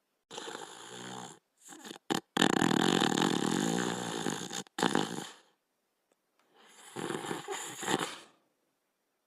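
Cartoon Border Collie snoring in its sleep: separate snores with silences between them, the loudest a long rattling snore starting about two and a half seconds in, and another near the end.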